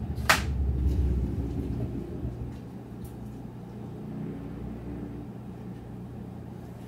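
A sharp click, then a low rumble that swells over the first two seconds and slowly fades into a steady low hum.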